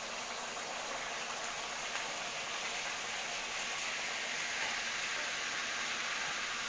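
Neyyappam batter of rice and jaggery sizzling steadily in hot oil, freshly poured in and starting to fry.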